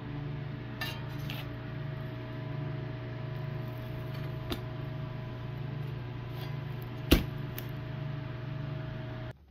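Steady low electrical or mechanical hum, with a few light clicks and taps; the sharpest click comes about seven seconds in. The hum stops abruptly near the end.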